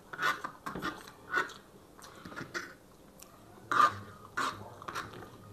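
Two people chewing and smacking on mouthfuls of stir-fried chowmein noodles, in irregular wet bursts, with light clicks of forks against the serving tray. One bite about four seconds in is the loudest.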